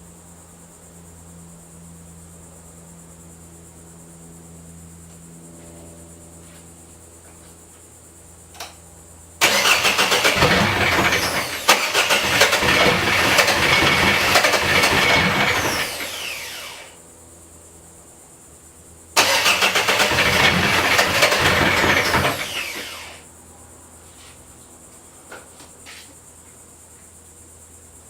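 Freshly rebuilt Yanmar 4JH2E four-cylinder marine diesel being cranked on its starter in two tries, about seven seconds and then about four seconds, each winding down when released without the engine staying running: its first start attempt after the rebuild, with the fuel just bled.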